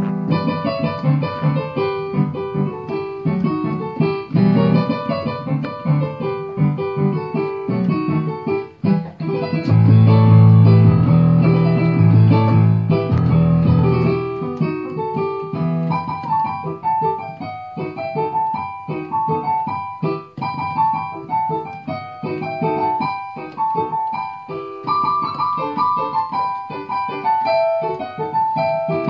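Piano playing a chacarera, an Argentine folk dance. Heavy low chords come in loudly about ten seconds in, then give way to a lighter melody higher on the keyboard.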